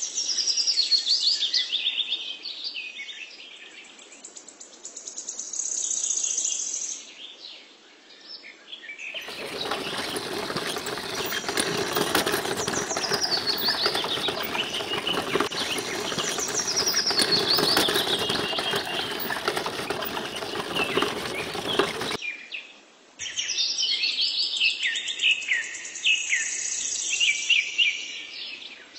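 Small songbirds chirping and trilling in quick falling phrases. From about nine seconds in until about twenty-two seconds, a steady hiss-like noise sits under the birdsong, then stops suddenly and the birds carry on.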